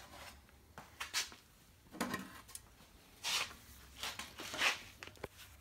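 A few short scrapes and rustles of gloved hands setting a metal combination square against a wooden board, about one a second.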